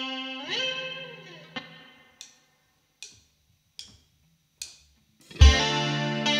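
An electric guitar chord rings and fades while its pitch bends up and back down, then four evenly spaced drumstick clicks count in, and the full band of drums, bass and electric guitars comes in together with a loud drum hit about five and a half seconds in.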